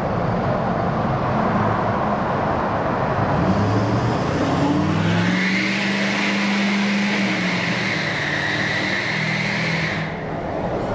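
Diesel pickup truck accelerating through a tunnel. The engine note climbs from about four seconds in and holds, with a high whistle over it, then eases off near the end.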